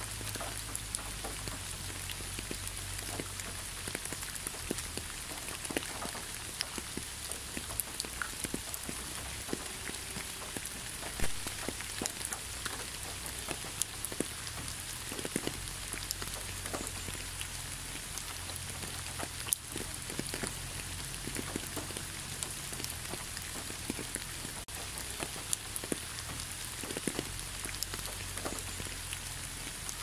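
Steady rain falling, with many individual drops heard as small close clicks over an even hiss, one of them louder about a third of the way in.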